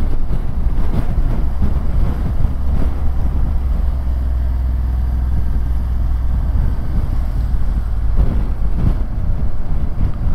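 Motorcycle running at road speed, with wind rushing over the microphone as it rides.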